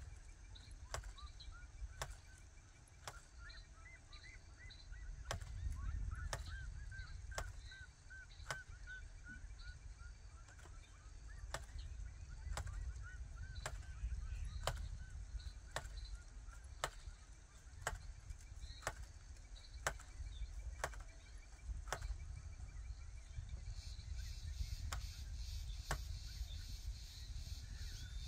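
A wooden hand jab planter (matraca) clacking about once a second as it is jabbed and worked along a planting row. Birds call in a quick series of short honking notes a few seconds in, over a steady low rumble.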